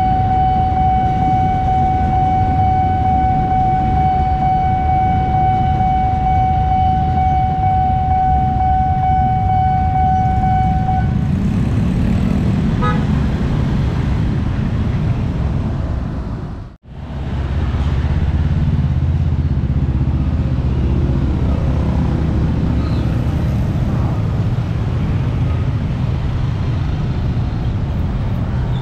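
A level-crossing warning siren of the Nippon Signal type sounds one steady electronic tone over dense traffic noise, then stops about eleven seconds in as the crossing clears. Afterwards a crowd of motorcycle and car engines runs and pulls away across the tracks, with the sound dropping out for an instant midway.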